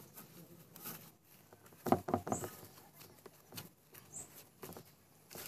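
A cloth rubbing and scrubbing over a varnished wooden carving: a few scratchy wiping strokes, the loudest about two seconds in.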